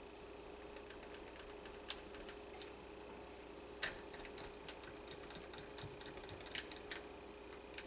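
A small spoon tapping and clicking against a cup while stirring kaolin clay into a little soap batter. There are two sharp taps about two seconds in, then a quick run of clicks, several a second, through the last few seconds.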